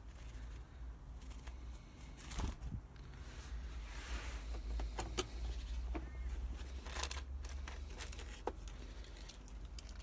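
Hands handling a plastic-bottle bird trap: scattered light clicks and taps with short crinkling rustles of thin plastic.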